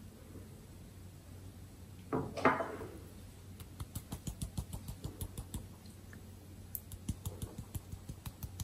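Wire-mesh flour sieve being tapped to sift flour and baking powder: a run of light, quick taps, several a second, starting about three and a half seconds in. A single louder knock or rattle comes about two seconds in.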